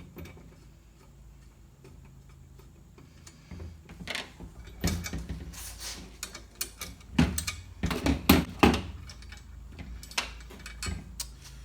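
A socket ratchet clicking as nuts are loosened off the table saw stand's leg posts, with small metal nuts and washers clinking and knocking. It starts about four seconds in, and the loudest knocks come about 7 to 9 seconds in.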